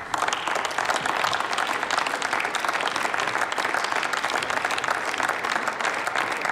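Applause from seated members of parliament: many hands clapping together, breaking out suddenly and then holding steady.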